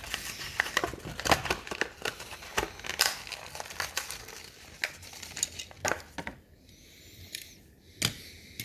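A Hot Wheels blister pack on its cardboard short card being crinkled and torn open by hand: a dense run of crackling and tearing that thins out about six seconds in, with one more sharp snap near the end.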